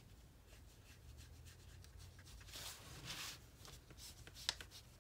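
Faint brushing and scratching of a watercolor paintbrush stroking across paper, with one sharp little tick near the end.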